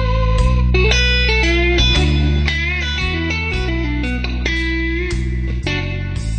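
Electric guitar music: a lead melody with bent, wavering notes played over changing bass notes.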